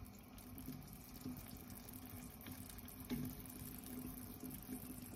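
Wooden spoon stirring pork pieces in a thin tomato sauce in a pan: a soft, steady sloshing of liquid with a few faint ticks.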